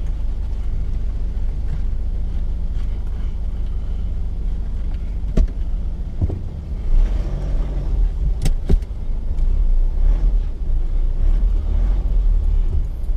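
Mitsubishi Triton ute heard from inside the cab while driving a rough off-road track: a steady low engine and tyre rumble. About halfway through come a few sharp knocks, two of them in quick succession.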